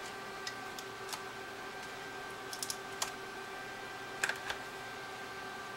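Light clicks and taps of small plastic and metal parts of a 3rd-generation iPod being handled and fitted, a few single clicks and a quick cluster of three, the loudest near the end, over a steady background hum.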